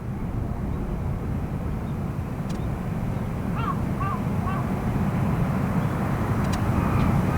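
ATR 42-600 twin-turboprop airliner on its takeoff run, a steady low engine rumble growing louder throughout.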